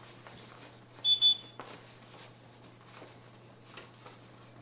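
A short, high electronic beep about a second in: two quick pulses at one steady pitch, over faint rustling and handling noise.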